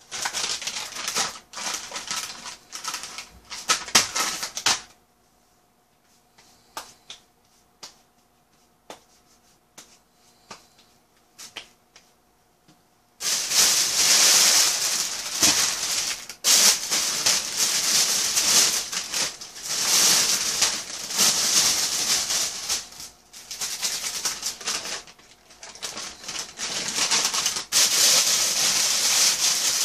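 White plastic carrier bag rustling and crinkling as takeout food is unpacked from it. It comes in short bursts at first, then a few scattered rustles, then dense, continuous crinkling from about halfway.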